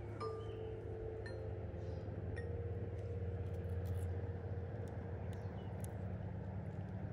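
Steady low rumble of river current and wind at a phone held just above the water, with a few faint short high notes and small ticks.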